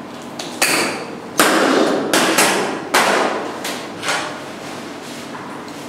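Costotome (rib shears) cracking through a chicken's ribs to open the chest: a series of sharp snaps about every half second, six or seven in all, stopping about four seconds in.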